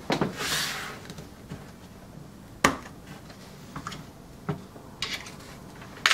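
AP Bobinquick-135 bulk film loader being handled on a table: a brief scraping rustle at the start, then a few sharp clicks and knocks as its hinged lid is opened and parts are taken off and set down, the loudest about two and a half seconds in and at the very end.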